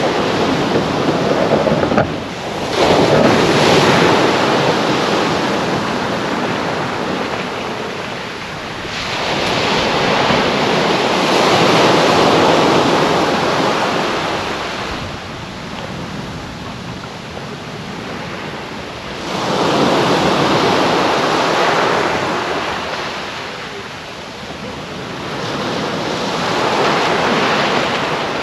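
Small waves breaking and washing up a pebbly beach. The surf swells and fades four times, each surge lasting a few seconds.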